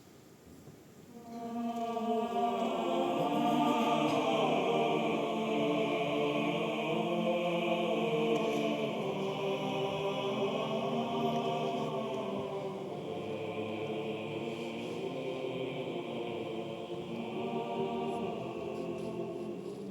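Male choir singing slow, held chords, coming in about a second in and swelling to full voice.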